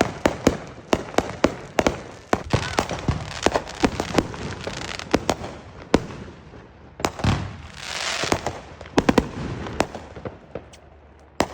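Fireworks going off: a rapid, irregular string of sharp bangs and cracks, with a hissing, crackling rush about eight seconds in.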